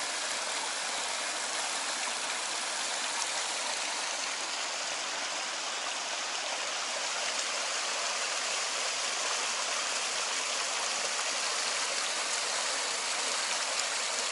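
Small mountain creek running over rocks in a little cascade: a steady, unbroken rush of water.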